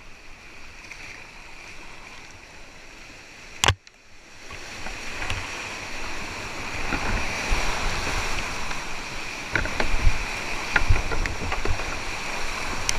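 Whitewater rushing around a kayak running a creek rapid, growing much louder about four and a half seconds in as the boat drops into the white water, with low thumps of water slapping. A single sharp knock comes just before the rise.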